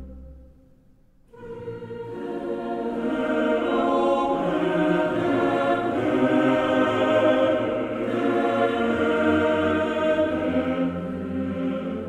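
Background music with choir-like voices singing long held chords. It comes in after a brief near-silent gap about a second in and swells.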